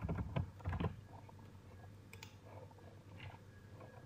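Computer mouse and keyboard clicks: several sharp clicks in quick succession in the first second, then a few fainter clicks over a quiet room.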